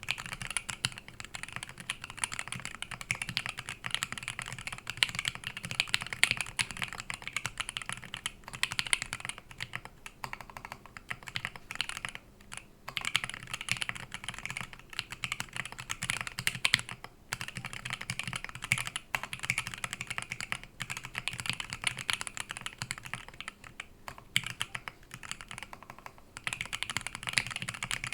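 Fast, continuous typing on an LZ Physix custom mechanical keyboard, with lubed JWK Pinoko switches on 62 g springs, a copper plate and Imsto Japanese R3 dye-sub keycaps. The typing pauses briefly a few times.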